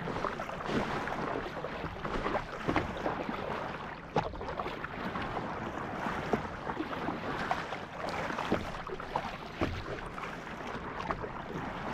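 Water splashing and lapping around an inflatable paddle board as a double-bladed kayak paddle dips in stroke after stroke, with irregular sharper splashes.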